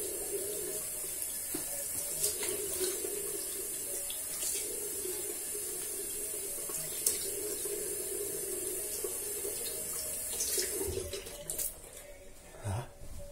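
Bathroom tap running into a sink while a face is rinsed after shaving, with a few sharp splashes. The water stops about eleven seconds in, and a short knock follows near the end.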